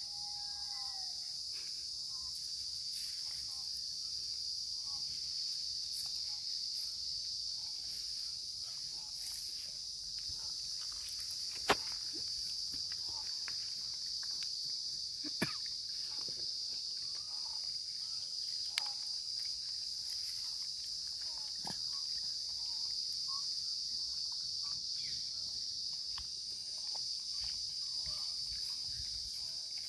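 Steady, high-pitched drone of insects in the daytime countryside, with a few sharp clicks now and then, the loudest about twelve seconds in.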